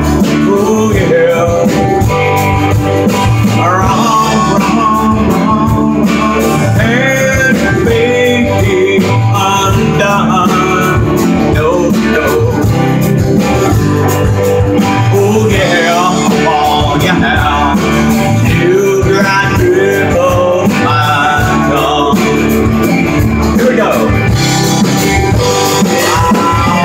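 Live band of acoustic and electric guitars with bass playing loudly without a break, a lead line of bending, sliding notes running over the strummed chords.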